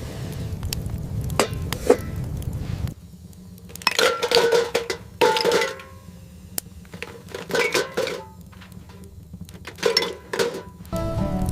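Scattered clinks and knocks of hard objects being handled, some leaving a brief ringing tone, in several clusters. A low steady rumble runs under the first three seconds and cuts off suddenly.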